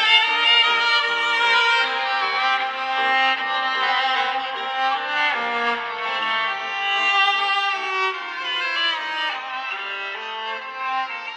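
A Samsung Galaxy A32 ringtone from One UI 4: a melody led by violin, with several notes sounding together, that cuts off abruptly at the end.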